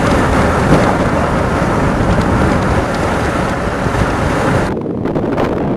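Heavy wind noise on the microphone over the road noise of a moving car. Near the end the hiss drops away abruptly, leaving a lower, gusty wind rumble.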